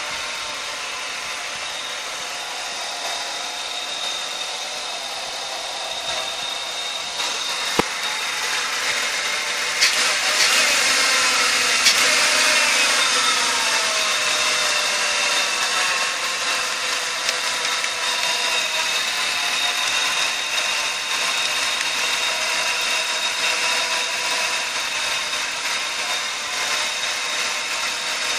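A 2000 Buick LeSabre's 3800 V6 engine running at idle with the hood open, a steady whine over a hiss. There are a few sharp clicks, and about ten seconds in the tones shift and bend in pitch.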